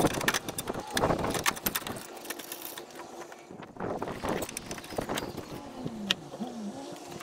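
Hand ratchet clicking rapidly as it runs a bolt into a radiator bracket, with a few knocks of tool on metal; the clicking thins out after about two seconds and one sharp click comes later.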